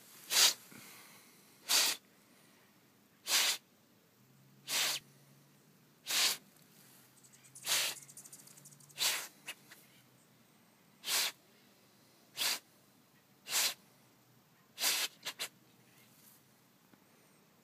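Bull terrier sniffing hard with its nose in the grass at a gopher hole: short, forceful sniffs about one every second and a half, with three quick ones in a row near the end, the dog scenting the gopher in its burrow.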